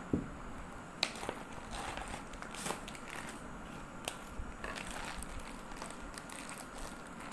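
Handling noises: scattered light clicks and knocks with some crinkling and crackling, the sharpest knock just after the start and another about a second in.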